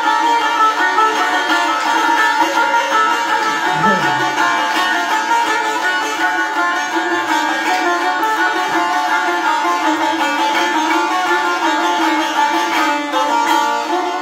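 Azerbaijani saz, a long-necked lute, played solo: a continuous strummed instrumental passage with many strings ringing together.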